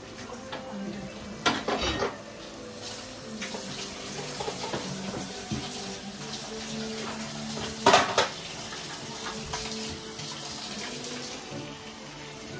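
Kitchen clatter: utensils and pans clinking and knocking over a steady hiss like running water or simmering. The two loudest clatters come about 1.5 s and 8 s in.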